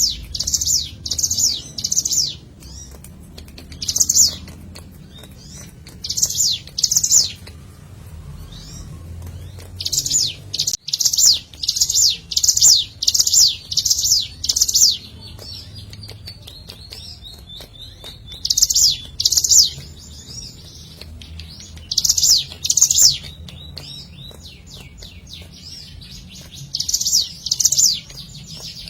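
Ciblek gunung (a prinia) singing: repeated phrases of loud, sharp, high-pitched notes in quick runs, with a longer run of about a dozen notes near the middle and short pauses between phrases.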